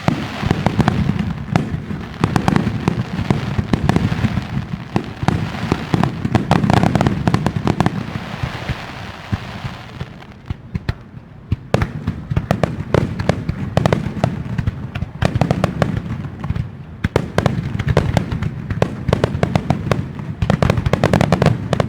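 Fireworks barrage from a wide star mine: many shells bursting in rapid succession, dense booms and crackling over a continuous rumble. It thins briefly about halfway through, then builds up again.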